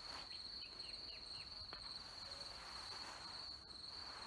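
Faint crickets chirping in a steady high drone, with a few short, falling higher chirps about a second in.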